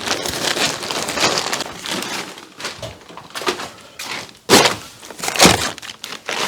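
Blue plastic tarp crinkling and rustling as it is spread out by hand, with two louder swishes about two-thirds of the way through.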